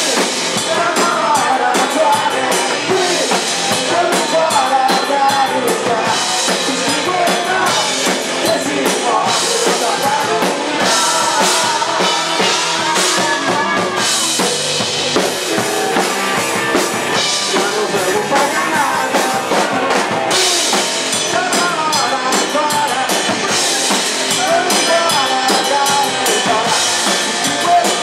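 Live rock band playing an instrumental passage between sung verses, with a full drum kit of kick and snare driving it and melodic lines over the top.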